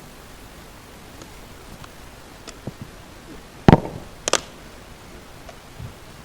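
Two sharp knocks about half a second apart, a little past the middle, the first heavier and deeper, with a few faint clicks before them, over a steady room hiss.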